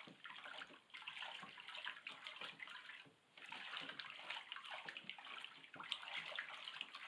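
Water swishing and sloshing in a plastic tote as a stick stirs it round, dissolving alum and salt into a tanning solution, with a brief lull about three seconds in.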